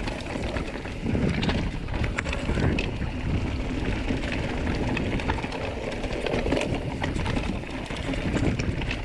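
Mountain bike rolling over a rocky, leaf-strewn trail: a steady tyre rumble with many small clicks and rattles from the bike and the stones, and wind on the microphone.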